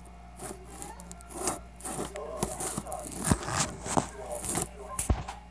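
Handling noise from a phone being picked up and moved close to the microphone: scattered knocks, scrapes and rustling, the loudest knocks a little past the middle and near the end.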